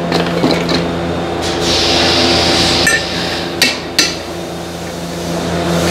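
A few sharp metal taps and clinks of hand tools on a brake caliper bracket, with a short hissing scrape in between. A steady hum runs underneath.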